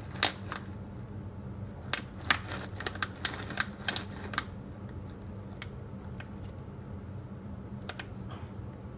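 Sharp clicks and crinkles of packaging being handled, clustered in the first few seconds with a couple more near the end, over a steady low hum.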